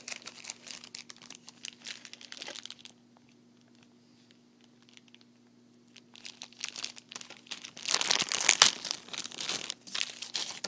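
Clear plastic packaging bags crinkling as they are handled and pulled out of a cardboard box, in two spells: about three seconds of crackling at the start, then louder crinkling from about six seconds in until near the end.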